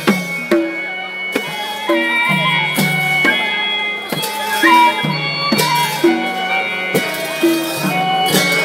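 Nepali folk music for a Ropai Jatra dance: a drum beating a steady rhythm of about two strokes a second under held melodic notes.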